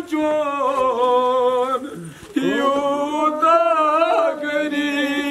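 A man chanting a noha, a Muharram lament, in long held, wavering notes, with a short break for breath about two seconds in.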